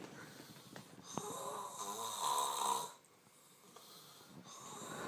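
A sleeper snoring loudly: one long snore builds from about a second in and cuts off at about three seconds, then the next breath starts to swell near the end.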